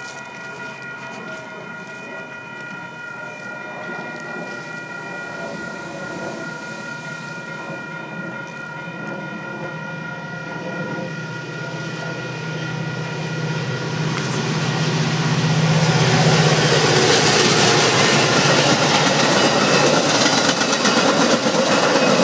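Metra commuter train approaching and passing at speed: its diesel locomotive's hum grows louder over the first fourteen seconds or so, then gives way to the loud, steady rush and rumble of bilevel coaches going by from about fifteen seconds in. A steady high ringing tone sounds in the background during the approach.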